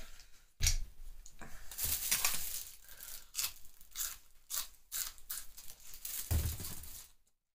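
Raw green onion being bitten into and chewed: an irregular string of sharp crunches and tearing rips that stops shortly before the end.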